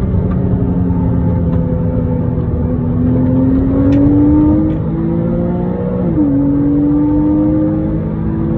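Porsche Cayman S (987) 3.4-litre flat-six heard from inside the cabin under hard acceleration, its pitch climbing steadily through the gear. About six seconds in the pitch drops sharply at an upshift, then starts climbing again.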